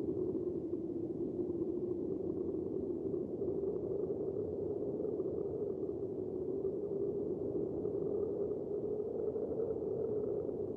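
A steady low drone with no knocks or breaks, a sound-design ambience between scenes of a radio play.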